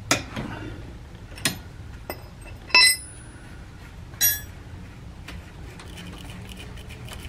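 Steel combination wrenches clinking against each other and the brake caliper as a caliper bolt is loosened and the wrenches taken off: a few sharp clicks, then two ringing metallic clinks about three and four seconds in.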